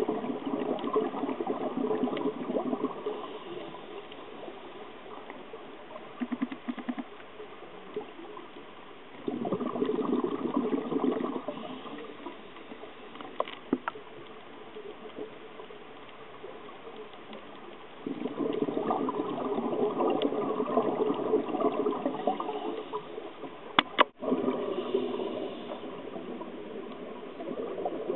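Scuba regulator heard underwater: the diver's exhaled bubbles gurgle out in long bursts of a few seconds each, roughly every nine seconds, with quieter stretches between breaths. One sharp click a few seconds before the end.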